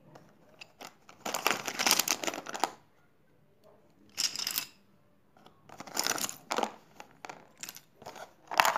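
Pencils and pens clattering against one another and against a clear plastic box as a hand rummages through them and lifts them out. The sound comes in four short bursts of rattling, with quiet gaps between.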